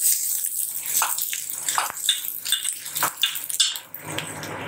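Halved shallots and a green chilli sizzling in oil in a stainless steel kadai, while a steel spatula stirs them, scraping and clinking against the pan many times.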